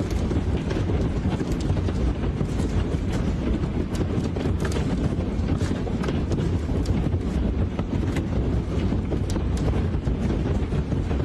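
Hailstorm: large hailstones striking hard surfaces in a dense, irregular clatter of sharp impacts, over strong wind buffeting the microphone.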